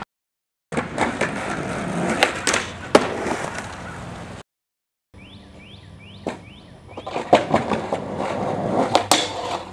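Skateboard on a low metal flatbar: wheels rolling, with sharp pops and clacks as the board and trucks strike the rail, in two stretches split by a brief silence.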